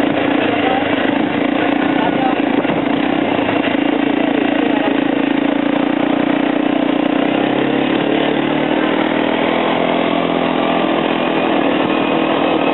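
Quad bike (ATV) engine running steadily under a rush of noise while riding along; the engine note sags slightly about seven seconds in.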